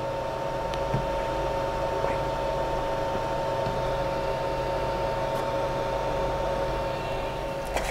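Steady machine hum with two faint steady whining tones over it, and a soft knock about a second in.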